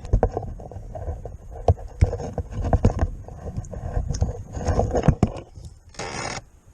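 Irregular knocks, taps and scraping of fishing gear being handled in a kayak, with a short burst of hiss a little after six seconds.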